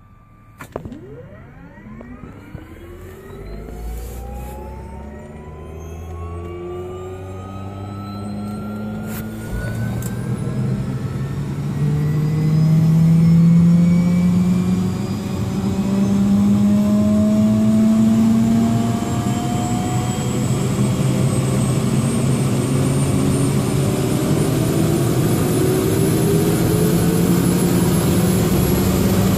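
Helicopter turbine engine starting up: a whine that climbs steadily in pitch and grows louder over about a dozen seconds as the engine spools up and the main rotor begins turning, then settles into steady loud running while the highest whine keeps slowly rising.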